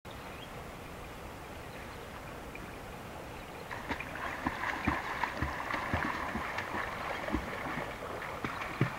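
Water splashing and lapping as a swimmer pushes a bamboo raft through a river. A steady soft wash at first; from about four seconds in the splashing grows louder, with many short, soft low thumps.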